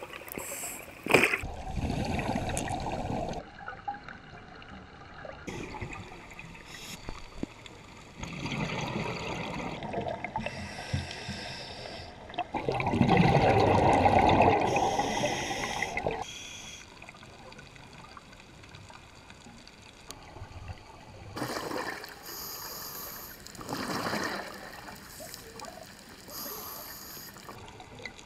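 Scuba diver breathing through a regulator underwater: bursts of exhaled bubbles gurgling every few seconds, the longest and loudest about halfway through, with quieter hissing breaths in between.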